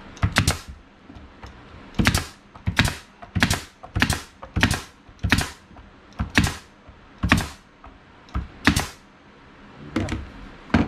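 Bostitch pneumatic nail gun firing about a dozen times, each shot a sharp crack, driving nails into the wooden boards of a planter box. The shots come roughly two-thirds of a second apart at first, then more slowly toward the end.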